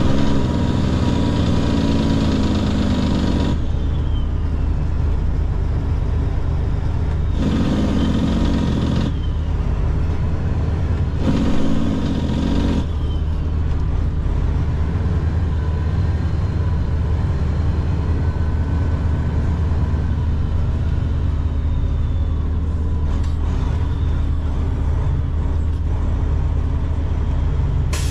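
Semi truck's diesel engine heard from inside the cab, running at low speed with a steady low rumble. The throttle comes up in three short spells, near the start, about seven seconds in and about eleven seconds in, as the truck is manoeuvred slowly.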